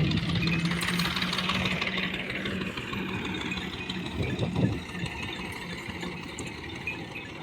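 An engine running, louder over the first two seconds and then easing off.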